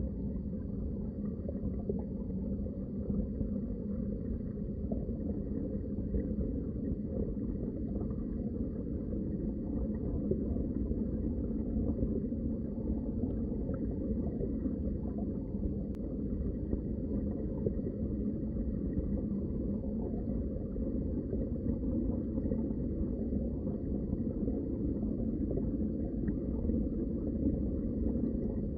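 Underwater water ambience: a steady, muffled, low rush of moving water picked up by a microphone below the surface.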